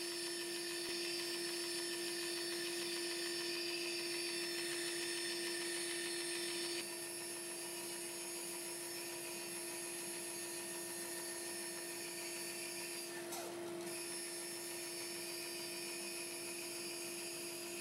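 Band saw running steadily with its fine-toothed blade cutting a circle in melamine-faced MDF: an even motor hum with a thin high whine. The level drops slightly about seven seconds in.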